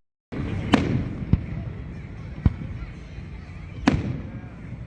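Aerial fireworks going off: four sharp bangs spread over a few seconds, with a steady crackling haze between them. The sound cuts out completely for a moment at the very start.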